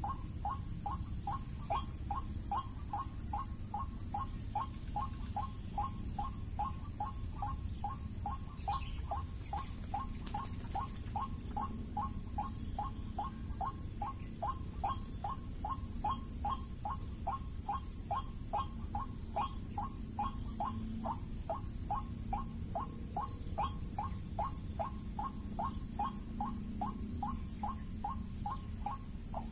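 White-breasted waterhen call played as a trapping lure, one short 'ruak' note repeated very evenly about twice a second, with a steady high-pitched tone behind it.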